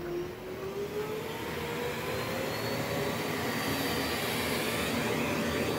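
Corded vacuum cleaner running, its motor whine slowly rising in pitch as the sound grows a little louder.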